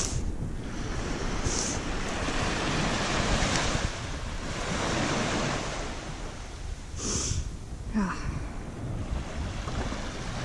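Small waves washing up and draining back over a flat sandy beach, the rush swelling and easing every few seconds, with wind buffeting the microphone.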